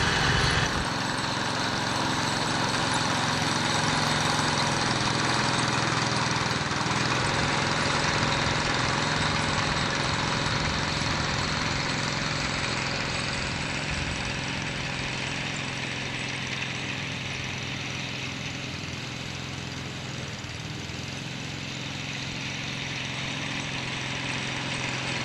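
A small engine running steadily at an even speed, its level dipping a little past the middle and rising again near the end.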